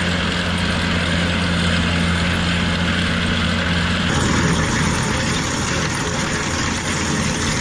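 Inter-Drain 3035 HT tracked drainage-tile trencher running steadily as it cuts a trench, a steady low engine drone. About four seconds in the sound changes abruptly to a harsher, noisier rush heard close to the machine's digging end.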